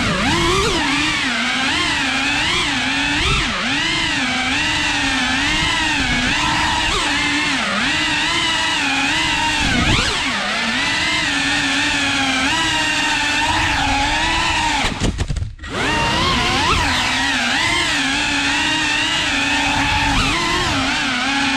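FPV quadcopter's brushless motors whining, the pitch constantly rising and falling with the throttle. The sound drops away sharply for a moment about fifteen seconds in.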